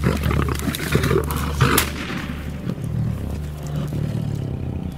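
A lion growling as it charges through dry grass and brush, with crashing rustles and sharp knocks, the loudest about a second and a half in.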